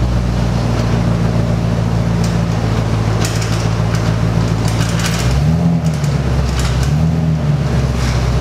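Flatbed pickup truck's engine running at low speed as the truck backs in, with two brief rises and falls in engine pitch about five and seven seconds in.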